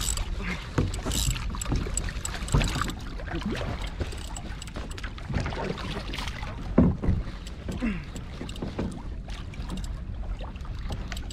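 Sea water sloshing and slapping against a fishing kayak's hull, with scattered knocks and rattles from rod and gear handling.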